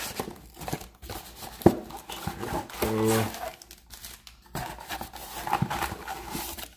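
Crinkling, tearing and rustling of packaging as a megabox of baseball cards is opened by hand, with a sharp knock about one and a half seconds in.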